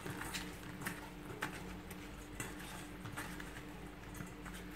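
Oiled, seasoned raw potato wedges being tossed by hand in a stainless steel bowl: faint, irregular soft knocks and taps of the wedges against each other and the bowl.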